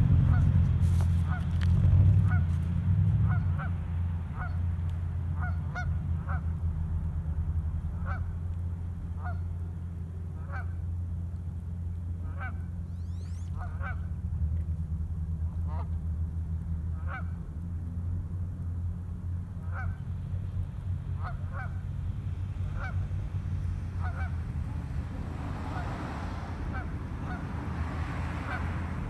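Geese honking repeatedly, short calls about once a second, over a steady low rumble.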